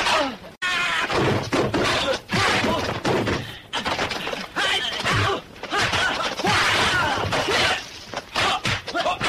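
Kung fu film fight soundtrack: a rapid string of punch and kick impact effects, some with a crashing, shattering edge, mixed with short shouts.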